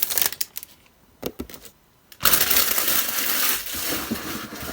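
Packaging being handled: a few light clicks, then about two seconds in, a steady rustling handling noise.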